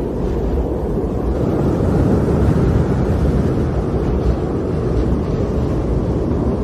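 Snowstorm wind blowing steadily, a dense low rushing noise without gusts or breaks.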